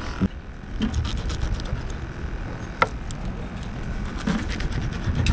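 Wind rumbling on the microphone, with scattered small clicks and taps of fishing tackle being handled, one sharper click about three seconds in.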